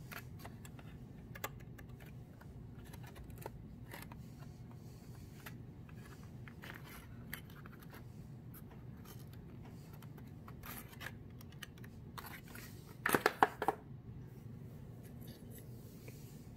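Cardboard 3D puzzle pieces being handled: scattered light clicks, scrapes and rubs, with a quick cluster of louder taps about thirteen seconds in. A steady low hum sits underneath.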